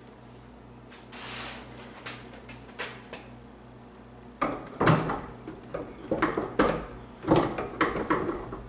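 Metal barn-door hardware being worked on a hanging sliding door: a few light clicks and a brief scrape, then about halfway through a run of loud knocks and clunks as the door is shifted on its steel track.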